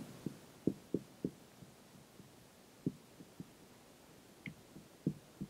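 Dry-erase marker writing on a whiteboard: faint, soft taps at an irregular pace as the marker meets the board, with one brief higher squeak about four and a half seconds in.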